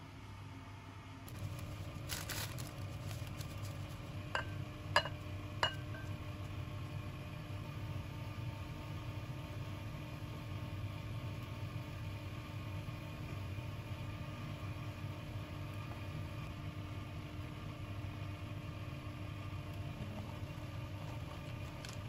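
A steady mechanical hum from a running kitchen appliance comes on about a second in. Three short ringing clinks sound between about four and six seconds in.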